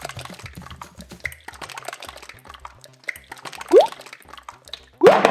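Thick slime squelching and crackling as it oozes out of a tub, with a short rising squelch of trapped air about four seconds in.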